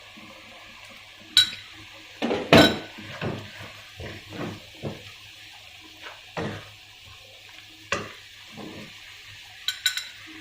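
A cooking utensil scraping and clinking against a pan as the chili paste is stirred and scooped, with a few sharp clinks scattered through, several in quick succession near the end.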